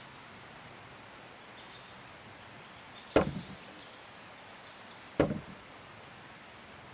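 The wooden beam of a monjolo (water-powered trip hammer) being worked by hand thuds down twice, about two seconds apart. Each heavy wooden thud is followed by a couple of quick rebound knocks as the beam settles.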